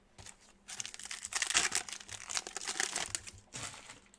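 Plastic trading-card pack wrapper crinkling and tearing as a pack of basketball cards is torn open, in an irregular crackle of rustles.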